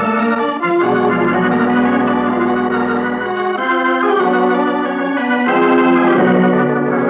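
Organ music bridge between scenes of a radio drama: held chords that shift every second or so.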